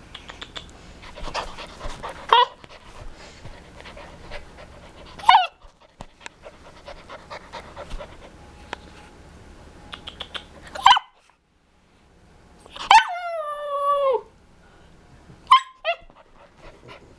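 Siberian husky puppy vocalizing: short high yips and barks at intervals of a few seconds, and about two-thirds of the way in one longer howl-like call, over a second long, that slides down in pitch.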